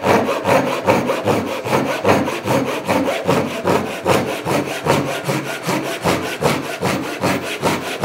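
Gyokucho kataba, a Japanese pull saw, crosscutting hard maple with quick, steady back-and-forth strokes; the teeth cut on the pull stroke.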